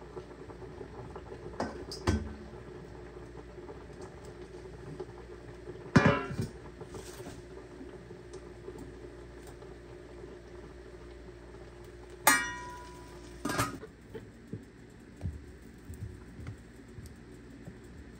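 Cookware clattering: a few sharp metal knocks and clangs of utensils against pots and pans, the loudest about six and twelve seconds in, the second ringing briefly. Under them runs a steady low hum that eases near the end.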